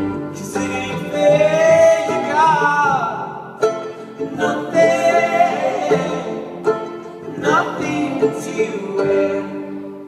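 Live acoustic band performing a song: singing with gliding, held notes over plucked guitar and upright bass, in a large reverberant church. The music dies down near the end.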